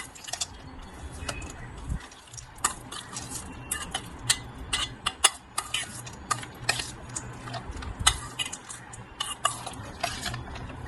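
Raw papaya salad being tossed and mixed in a bowl: utensils clicking and scraping against the bowl in quick, irregular taps.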